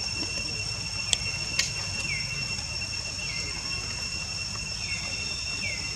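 Steady high-pitched insect drone with a second, higher tone above it. A short falling chirp repeats about once a second, and two sharp clicks come a little over a second in.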